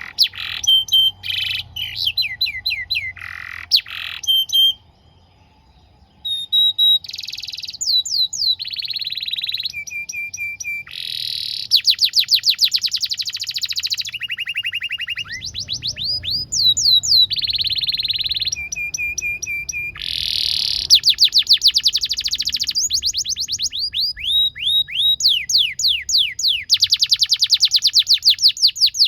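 Domestic canary singing a long, vigorous song of rapid trills and rolls, switching from one repeated-note phrase to the next every second or two, with a short pause about five seconds in.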